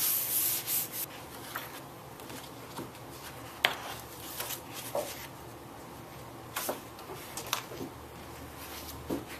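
Hands rubbing a sheet of paper against a gel printing plate for about the first second. Then paper rustling as the sheet is handled and lifted off the plate, with a few light clicks and taps.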